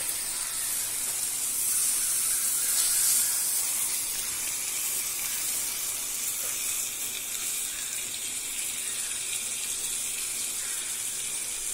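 A whole marinated chicken frying in melted butter in a nonstick pan: a steady sizzle.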